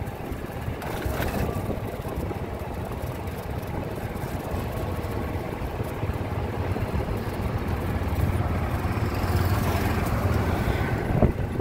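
Ride-along sound of a golf cart rolling along a paved trail, a steady low rumble of motor and tyres with wind on the microphone. It grows a little louder as an oncoming golf cart passes close by near the end.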